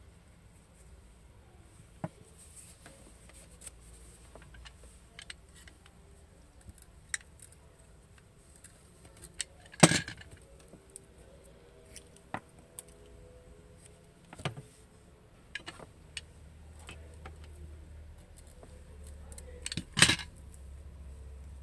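Small clicks and taps from a white cable being handled and its insulation cut and stripped with a utility knife, with two louder knocks, one about ten seconds in and one near the end.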